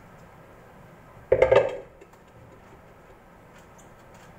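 Brief clatter of a bowl knocking against a stainless steel tray, a quick run of knocks about a second and a half in.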